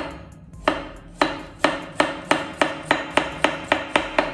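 Chef's knife slicing a carrot into thin flower-shaped rounds, each stroke knocking sharply on a plastic cutting board. The chops speed up from about one and a half to about four a second.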